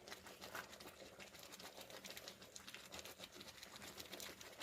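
Faint, irregular ticking and scraping of sooji halwa being stirred with a spoon as it cooks in the pan.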